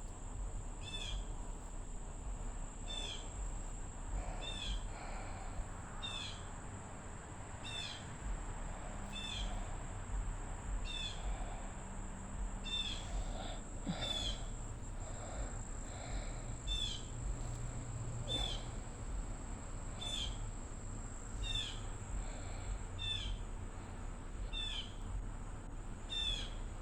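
A bird repeats one short, high chirping call about once a second, over a steady high-pitched insect whine.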